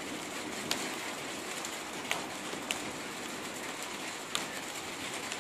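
Steady heavy rain falling, with four sharp taps of drops landing close by.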